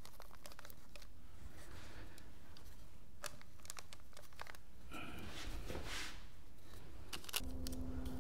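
Cardboard tube wet with black paint rolled by hand over painted pieces on kraft paper, used as an improvised hard roller: faint rustling and crinkling of paper and cardboard with small scattered ticks, the rustle louder about five seconds in.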